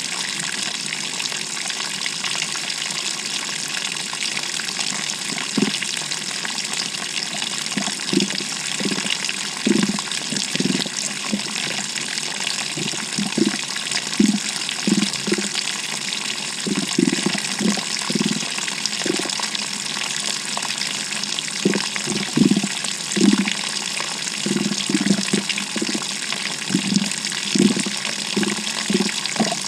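GE top-load washing machine heard from inside its tub: water rushing in with a steady hiss, with irregular low sloshing thumps starting a few seconds in and coming more often toward the end.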